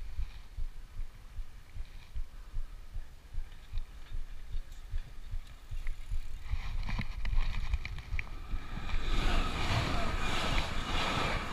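Wind buffeting the microphone of a camera riding along on a bicycle, with a few light ticks in the middle; about nine seconds in, a louder steady rushing noise comes in and holds.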